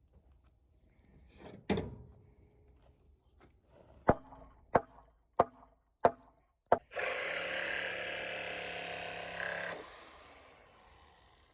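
Five sharp blows on the wooden fence planks, about two-thirds of a second apart, as the old planks are knocked loose. A power saw then runs for about three seconds and stops.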